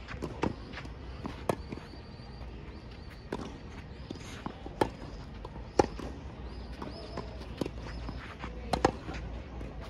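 Tennis rally on a hard court: sharp pops of tennis balls struck by rackets and bouncing on the court, about eight in all, coming every second or so at an uneven pace.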